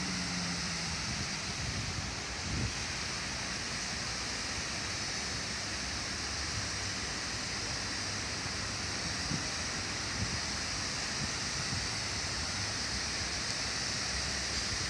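Steady rush of falling water from a large cascade fountain and the lawn sprinklers spraying in front of it, an even hiss with a few faint knocks.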